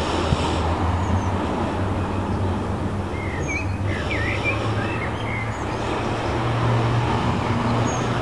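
Songbirds chirping in short scattered calls, most of them around the middle, over a steady low rumble of road traffic.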